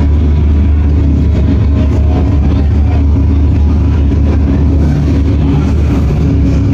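Loud, steady low droning rumble from a concert PA, with no drums or beat: an intro drone playing before the song begins.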